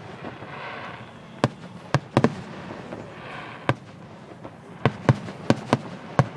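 Fireworks bursting in the sky: a string of sharp bangs at irregular intervals, several coming in quick succession a little past two seconds in and again near the end.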